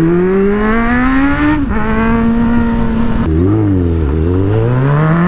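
Motorcycle engine under way, its revs climbing for about a second and a half, then dropping suddenly with an upshift and holding steady. A little past halfway the revs fall away and dip, then climb again near the end as the bike accelerates.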